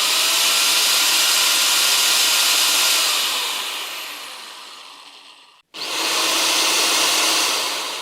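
Electric drill running in two bursts: a steady whirring that trails off after about three seconds, then, after a brief cut, starts again and trails off near the end.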